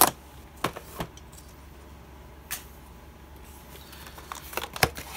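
Cardboard phone box being handled and opened after its tear strip is ripped: scattered light taps and scrapes of cardboard, busier near the end with one sharper knock.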